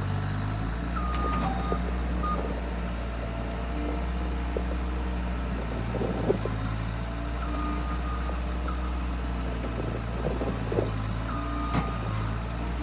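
Skid loader engine running steadily, with a few short high beeps sounding now and then and occasional sharp knocks and cracks as it works.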